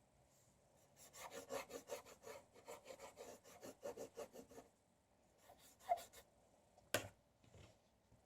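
Quiet, quick strokes of a paintbrush scrubbing on paper, about four or five a second for several seconds, then a few more strokes and a single sharp tap near the end.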